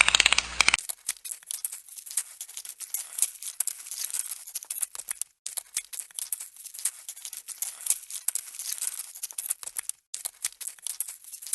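Dense, irregular crackling and rustling made of many rapid small clicks, with two short breaks.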